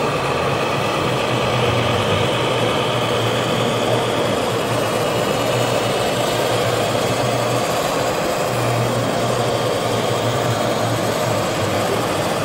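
Steady low diesel-engine drone from an RC model truck, with a brief dip about two-thirds of the way through, over the even background noise of a busy hall.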